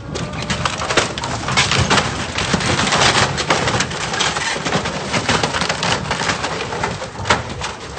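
Wooden dock cracking and splintering as a motor yacht's bow grinds into it: a dense, continuous run of sharp snaps and crackles. The yacht is being driven forward by thrusters stuck in gear.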